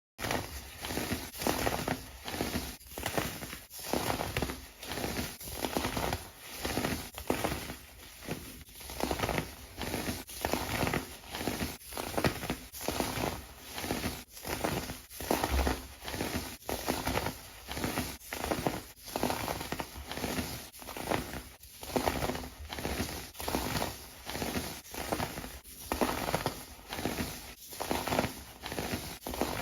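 Kinetic sand being crushed and crumbled, a gritty crunching that comes in repeated strokes about once a second.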